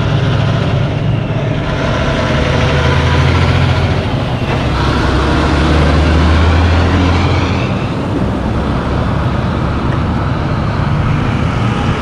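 Loaded logging truck's diesel engine pulling through a turn and passing close by. Its deep engine note is loudest about six seconds in, then fades as the truck moves away, with other road traffic around it.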